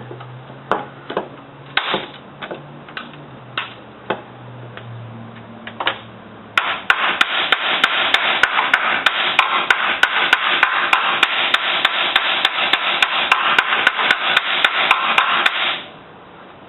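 Tool work on a car's steel frame rail during dent repair. A few scattered knocks and clicks come first. Then, about six and a half seconds in, a loud steady rasping noise starts, with about three sharp clicks a second, and it stops about a second before the end.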